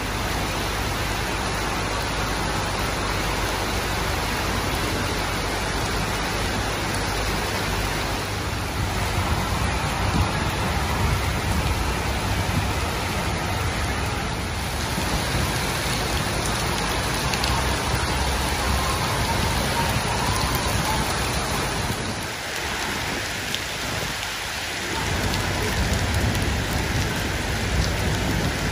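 Heavy tropical rain falling steadily on a flooded street, a dense even hiss with a low rumble underneath that eases briefly near the end.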